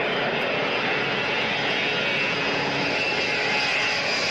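Boeing 707's four Pratt & Whitney JT3D turbofan engines at climb power as the jet climbs away after takeoff: a steady, loud roar with a high whine running through it.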